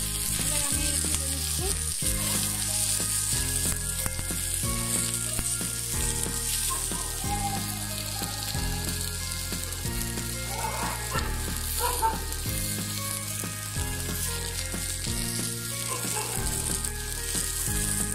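Garlic cloves, shallots and green and red chillies sizzling steadily as they fry in mustard oil, stirred now and then with a wooden spatula. Background music runs underneath, its bass notes changing about once a second.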